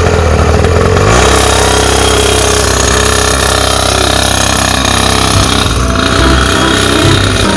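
Small two-stroke pocket bike engine running with a rapid, rattly buzz. It revs up about a second in as the bike pulls away and rides off.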